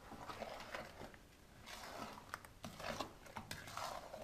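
Wooden spatula stirring strawberries in sugar syrup in an enamel bowl: irregular wet squishing and scraping, with a few sharp clicks of the spatula against the bowl.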